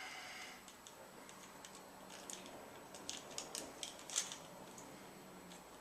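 Faint handling sounds of a small toy quadcopter and its box packaging: light rustling with a scattering of small sharp clicks in the middle, the loudest a little past four seconds in.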